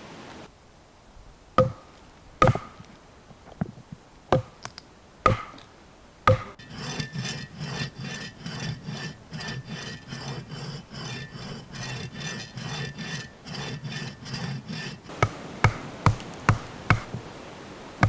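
A knife being batoned into wood with a wooden baton: about six sharp knocks with a short metallic ring. Then a folding saw cutting a stick with steady back-and-forth strokes for about eight seconds. Near the end comes a quick run of batoning knocks, about two a second.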